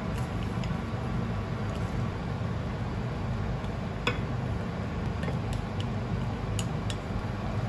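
Wooden chopsticks tapping and scraping against a frying pan and a ceramic bowl as chicken and egg are slid onto rice, with one sharper click about four seconds in, over a steady low hum.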